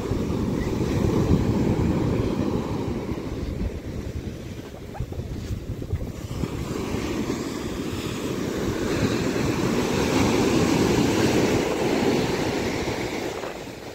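Sea surf breaking and washing up a sandy beach, with wind buffeting the microphone. The wash rises and falls in two swells, and the second, near the end, is the more hissing one.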